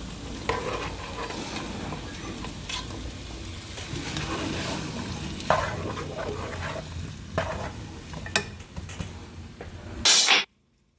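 Food frying and sizzling in a pot while it is stirred, with the utensil clicking against the pot now and then. About ten seconds in, a louder burst, then the sound cuts off suddenly.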